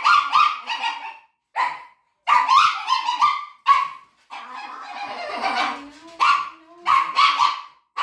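A dog screaming and yelping in a run of high-pitched cries, with one longer drawn-out cry in the middle. This is a dramatic protest at having its nails trimmed.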